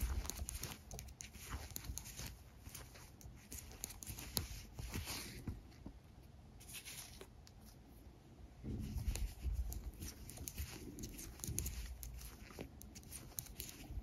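Knitting needles clicking lightly and yarn rubbing as a run of purl stitches is worked, faint, with soft handling bumps in the second half.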